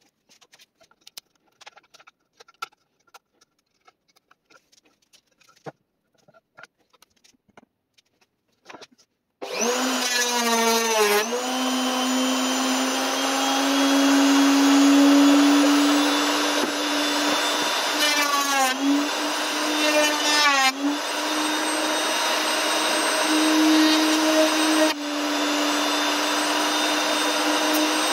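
Faint clicks of handling, then a wood router in a router table switches on, spins up and runs at a steady high pitch. The pitch dips briefly a few times.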